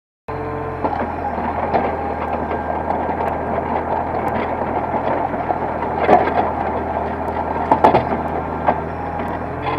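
Hitachi excavator's diesel engine running steadily under work, cutting in abruptly just after the start, with several sharp knocks of metal over the hum, loudest about six and eight seconds in.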